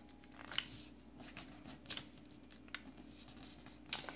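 Faint rustles and light taps of a sheet of origami colour paper being turned over, folded and pressed flat against a tabletop by hand, a few short crisp sounds scattered through.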